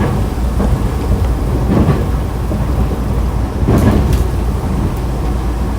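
Nankai electric train running, heard from inside the car: a steady low rumble with the wheels clicking sharply over rail joints several times.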